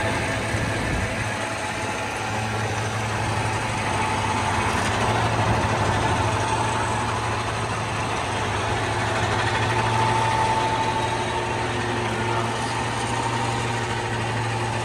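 A vehicle engine idling steadily, with a faint steady whine over it, while a car is unloaded from a car-transporter bed.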